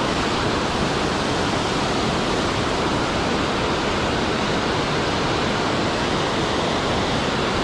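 Steady rush of water pouring over a concrete dam spillway into the pool below.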